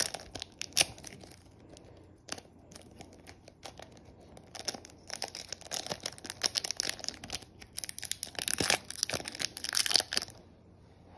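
Foil Yu-Gi-Oh! booster pack wrapper being crinkled and torn open by hand, in bursts of sharp crackling. The crackling is loudest near the end and then stops.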